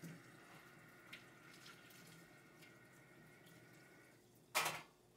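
Kitchen tap running into the sink while a metal vegetable grater is washed, a faint steady flow that stops about four seconds in. A brief loud clatter follows near the end.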